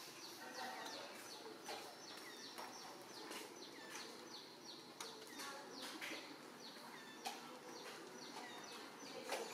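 Faint chirping of small birds: many short, high chirps that drop in pitch, repeating irregularly, over quiet background noise with a few soft clicks.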